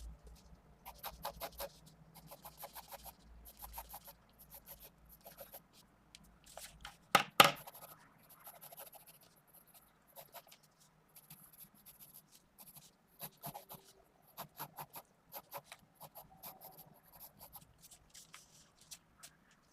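Pencil strokes on paper: a 0.5 mm 2B Pentel GraphGear 500 mechanical pencil sketching in quick runs of short strokes, with one louder knock about seven seconds in.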